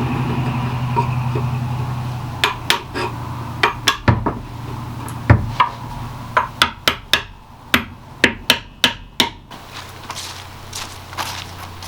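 A run of sharp, irregularly spaced knocks, like hammer taps on wood, about fifteen to twenty over several seconds, coming in quicker clusters near the middle. A steady low hum is heard before the knocking starts.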